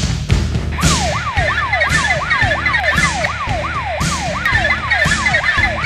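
Police siren in a fast yelp, its pitch sweeping down about three times a second, starting about a second in, over a steady low hum and occasional sharp hits.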